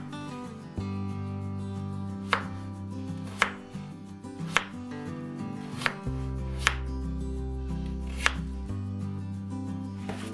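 A knife chopping on a cutting board: about six single sharp cuts, roughly a second apart, over background music with held notes.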